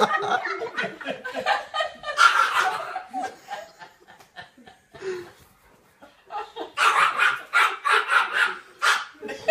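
People laughing in two bouts, one at the start and another from about seven seconds in, with a dog barking among it.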